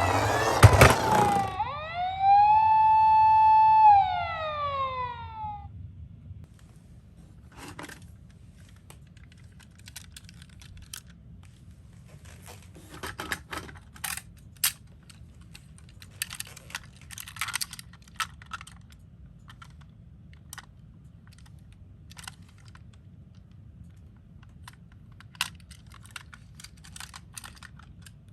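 Electronic siren of a toy miniature ambulance, a single high tone that dips in pitch, comes back, then slides down and cuts out about five seconds in. A sharp plastic clatter comes near the start. After that there are only scattered light clicks and taps.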